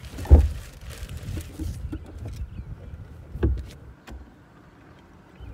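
Electric golf cart rolling with a low rumble and knocking: a heavy knock about a third of a second in and another about three and a half seconds in, with small rattles between.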